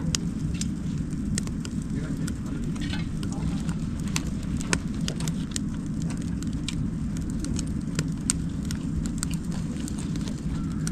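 Firewood crackling in a fire pit, irregular sharp pops over a steady low rumble.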